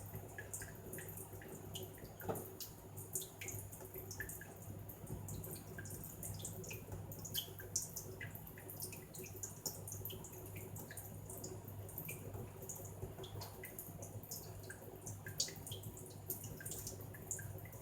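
Budgie splashing and drinking in a small pool of water held in a cupped palm: irregular little splashes and drips, over a steady low hum.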